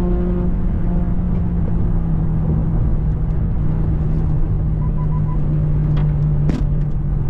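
Steady low drone of engine and road noise inside a car's cabin at highway speed, with a few sharp clicks near the end.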